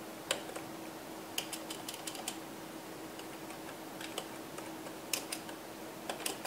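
Computer keyboard being typed in short, irregular bursts of key clicks with pauses between, as a short command is typed, partly deleted and retyped. A faint steady hum lies underneath.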